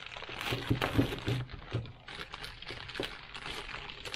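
Clear plastic parts bag crinkling and rustling as a new clutch master cylinder is unwrapped by gloved hands, with small clicks and knocks of parts being handled; busiest in the first couple of seconds, then sparser.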